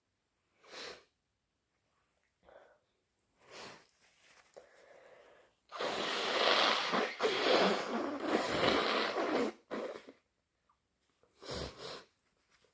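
A person sniffling thickly a few times, then blowing their nose hard for about four seconds in several pushes, then two quick sniffs near the end.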